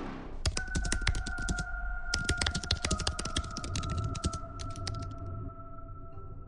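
Rapid computer-keyboard typing in three quick runs of clicks, over a steady held tone.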